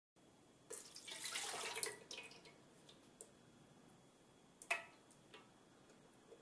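Milk poured into a metal bread-maker pan: a splashing pour of about a second starting just under a second in, trailing off into a few drips. A single sharp clink comes near the end.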